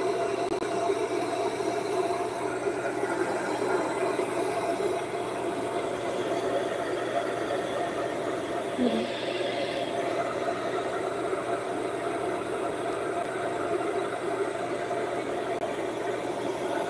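Handheld hair dryer running steadily: a constant motor whir and airflow hiss with a steady whine.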